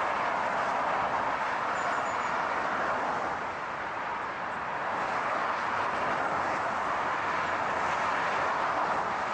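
Steady noise of a moving vehicle, an even rushing sound with no engine note standing out, easing slightly for a moment about four seconds in.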